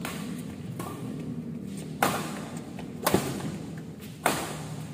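Badminton rackets hitting a shuttlecock back and forth in a doubles rally: three sharp hits about a second apart in the second half, with lighter taps before them, each echoing briefly in the hall.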